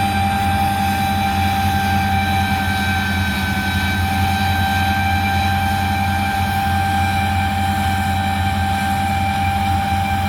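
A vehicle's engine running at a steady speed: an even low drone with a constant high whine over it, no change in pitch or level.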